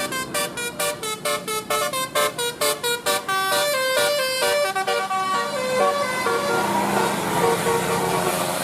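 Basuri-type telolet musical bus horn playing a rapid tune of short staccato notes, about three or four a second, that gives way about five seconds in to longer held notes over a rising noise.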